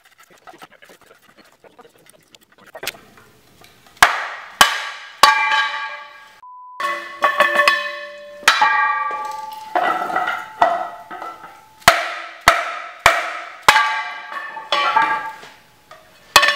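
Mallet blows on the chrome outer lip of a three-piece wheel being knocked apart. The first strike comes about four seconds in, and a dozen or so follow at roughly half-second to one-second spacing. Each blow is sharp and leaves the metal lip ringing with several clear tones.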